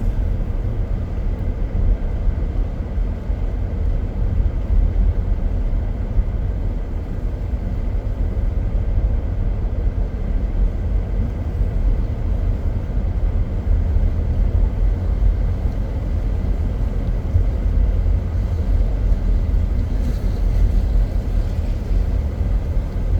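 Steady low rumble of a car descending a mountain road, heard from inside the cabin: engine and tyre noise with no distinct events.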